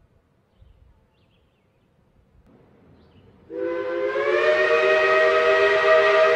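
Shay steam locomotive's chime whistle blowing one long chord of several tones. A rush of steam comes first, then the chord sounds about three and a half seconds in, sliding up in pitch as it opens and then holding steady.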